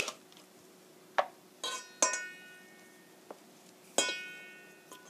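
Stainless steel box grater knocked against a steel mixing bowl to shake off clinging grated apple: several sharp metallic clanks that ring on briefly, the loudest about two and four seconds in.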